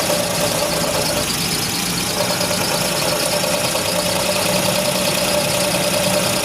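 Car engine idling with an abnormal noise, a steady whine over a fast fine rattle, which the mechanic traces to the timing cover area.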